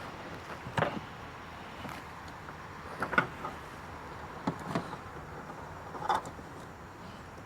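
Hands working small plastic trim pieces and clips at a car's wiper cowl: a handful of short clicks and knocks a second or two apart, over a steady background hiss.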